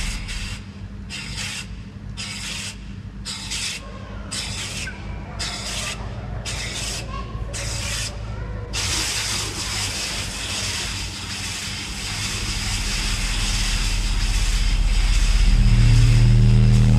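Gas flame jets on a fire sculpture firing in repeated whooshing bursts, about one a second. At about nine seconds this gives way to a steady hiss, and a deep bass drone swells over the last few seconds.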